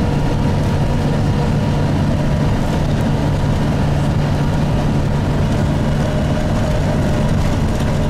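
Steady engine hum and road noise of a vehicle driving along, heard from inside the cabin.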